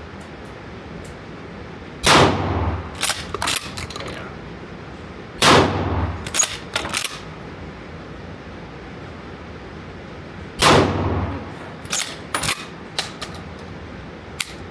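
Pump-action shotgun fired three times, the shots about three and five seconds apart, each shot ringing out. About a second after each shot come a few short, sharp clacks of the pump being racked to chamber the next shell.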